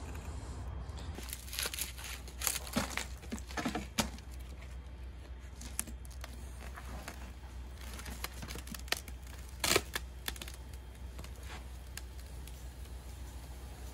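Wooden sand flask from an aluminum lost foam casting being handled and tipped, with scattered knocks and scrapes and casting sand spilling into a metal pot near the end. One sharp knock, about ten seconds in, is the loudest.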